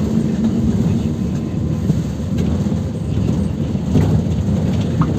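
PAZ 320405-04 bus's engine running under way, heard inside the passenger cabin as a steady low drone mixed with road and body noise. A short high squeak comes near the end.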